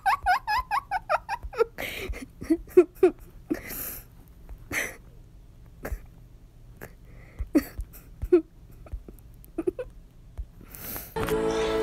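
A quick run of high-pitched laughter, then scattered short breathy sounds and clicks. Music starts just before the end.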